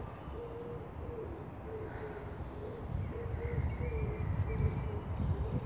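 A bird's low hooting note, repeated evenly about twice a second, over wind rumbling on the microphone.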